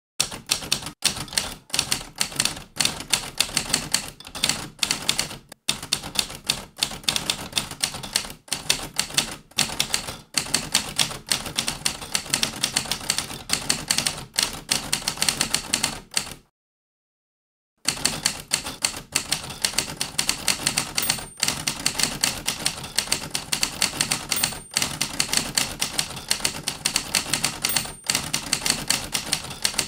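Typewriter keys clacking in rapid, continuous typing, with a silent pause of about a second just past the middle before the typing resumes.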